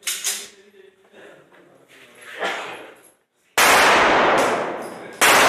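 Two gunshots about a second and a half apart, each very loud and ringing out long in a concrete hall, after a few light clicks and knocks of movement.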